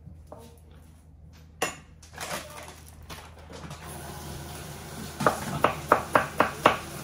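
Large kitchen knife chopping red onion on a wooden cutting board: from about five seconds in, a steady run of sharp knocks, about three a second. Earlier there is a single clatter about a second and a half in.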